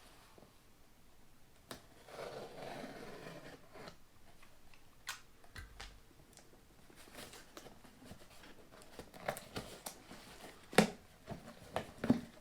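A parcel being opened by hand: packaging rustled and torn, with scattered sharp clicks and knocks of the box being handled, the loudest knock near the end.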